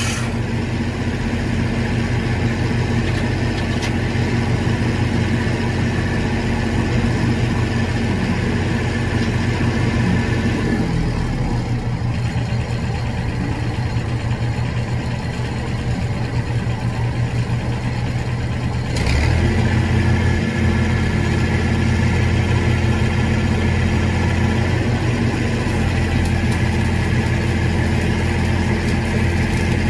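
Engine-driven welding machine running steadily, dropping to a lower idle about a third of the way through, then speeding back up about two-thirds in, under the load of the arc. A stick-welding arc on a 7018 rod crackles over the engine near the end.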